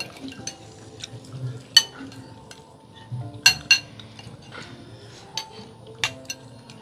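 Spoons clinking against bowls of bakso during a meal: scattered light clinks, a few sharper ringing ones about two and three and a half seconds in.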